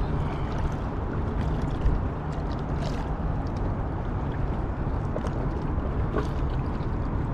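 Steady low rumble of wind and river water at the shoreline, with a few faint clicks from handling the fish and rod.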